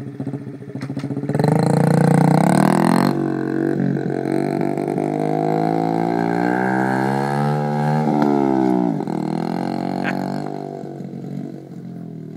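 Small engine of a mini dirt bike revving hard as it pulls away, loudest about two seconds in, then holding a high, slowly rising pitch. The pitch drops about nine seconds in and the engine fades as the bike rides off.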